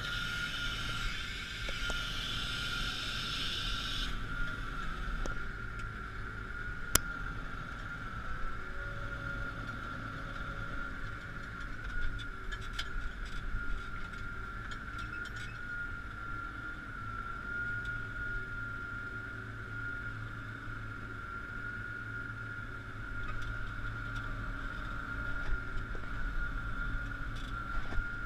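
Claas Axion 840 tractor's six-cylinder diesel running steadily while pulling a plough: a low engine drone under a steady high whine. A hiss stops abruptly about four seconds in, and there is one sharp click about seven seconds in.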